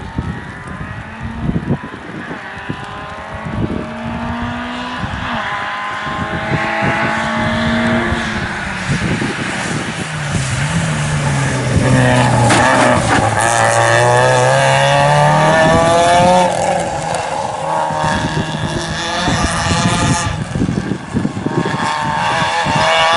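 A rally car running flat out on a wet stage. Its engine note climbs through several gear changes as it approaches, dips briefly as it passes close about halfway through, then climbs again as it pulls away through the gears. The tyres hiss on the wet tarmac.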